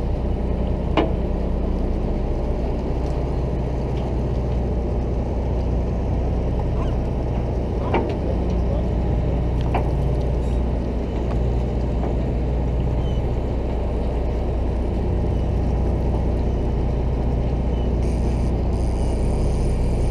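Fishing boat's engine running with a steady low drone. A few sharp clicks or knocks sound over it, the loudest about a second in.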